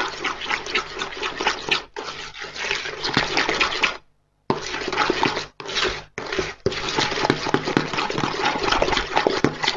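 A spoon beating eggs into creamed butter and sugar in a plastic mixing bowl: continuous wet squelching and scraping of cake batter. It stops for about half a second a little after four seconds in.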